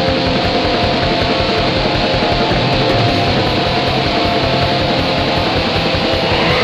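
Raw, lo-fi black metal: a dense wall of distorted guitar over rapid, even drumming, with little sound above the upper mids. The sound brightens near the end.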